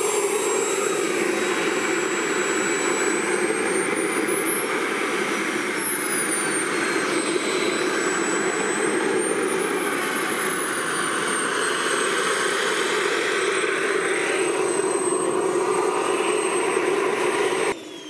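Model jet's K-140 turbine running in flight: a steady rushing jet noise with a high turbine whine that rises and falls in pitch twice as the jet passes or the throttle changes. It cuts off suddenly near the end.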